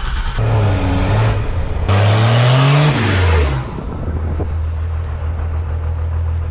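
Vehicle engine in a run of abruptly cut segments: one rev rises and falls in pitch about two to three seconds in, then the engine settles to a steady idle.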